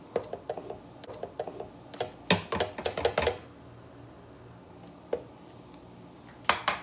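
Spoon clinking and knocking against a glass bowl and the blender jar while scoops of vanilla ice cream are dropped onto chopped mango: a quick run of irregular taps over the first three seconds or so, one more knock about five seconds in and a short cluster of knocks near the end.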